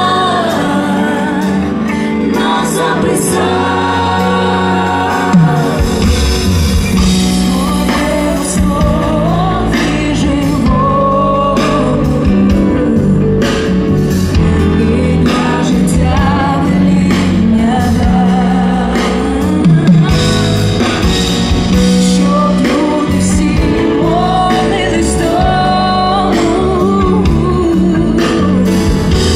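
Live Christian worship song sung in Ukrainian by a group of women and men with a band of guitar, keyboard and drums, amplified through a large PA system. The bass and drums come in about five and a half seconds in.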